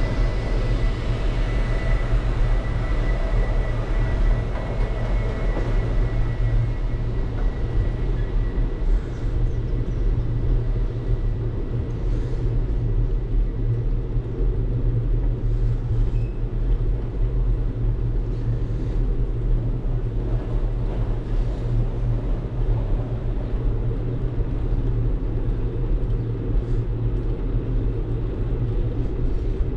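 Steady low rumble of a bicycle ride recorded on a bike-mounted action camera: wind buffeting the microphone and the tyres rolling over asphalt.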